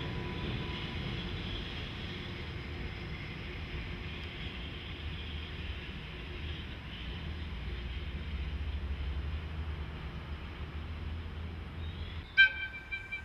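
JR Freight EH200 electric locomotive rolling slowly over depot tracks, a steady low rumble that swells in the middle. About a second before the end comes a single sharp metallic clang that rings briefly.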